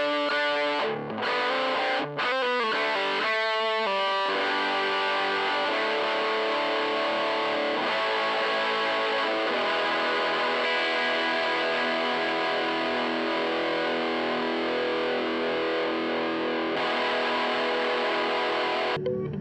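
Distorted electric guitar, a Michael Kelly Patriot Custom played through a Joyo crunch distortion pedal into a Fender tweed Deluxe (5e3) copy amp, miked with a Shure SM57. A few short, choppy chords come first, then one chord is left ringing for about fifteen seconds before it cuts off near the end.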